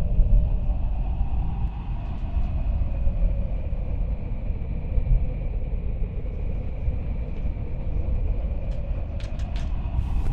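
Steady, deep rumbling sound effect with a faint high whine running through it, and a few sharp crackles near the end.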